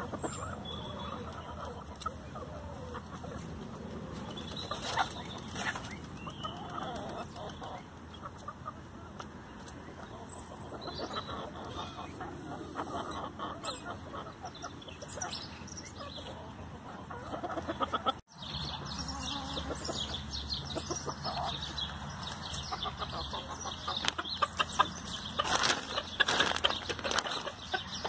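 A flock of bantam chickens clucking while they peck at freshly cut grass, with quick clicks and rustles from their beaks and feet in the grass. The sound breaks off for a moment about two-thirds of the way in, and the clicking gets busier after that.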